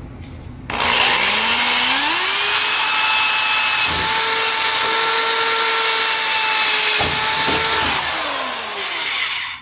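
Corded electric drill starting about a second in, rising in pitch as it spins up, then running steadily while it bores a pilot hole through the bus's riveted metal side panel. It winds down near the end, the pitch falling as it stops.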